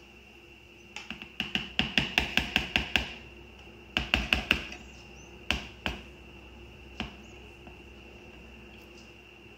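A metal spoon tapping and clinking while honey is scooped out and dripped into a mixing bowl. There is a quick run of about a dozen light taps, about five a second, then a shorter burst about four seconds in, and a few single taps after that.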